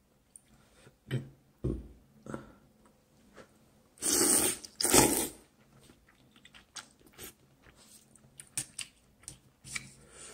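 A person eating Korean instant noodles, with two loud slurps about four and five seconds in. Chewing and small clicks come before and after the slurps.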